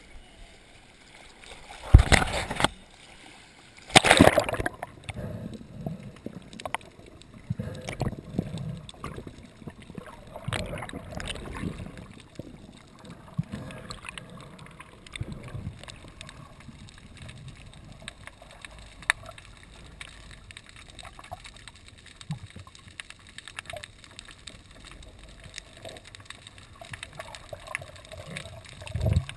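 Sea water splashing and gurgling around a waterproof camera: two loud splashes about two and four seconds in, then irregular low sloshing and bubbling.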